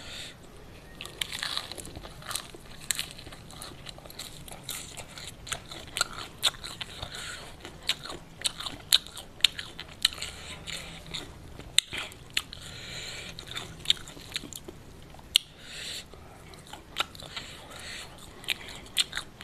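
Close-up chewing of a mouthful of raw lettuce and crispy fried chicken, with many sharp, irregular crunches.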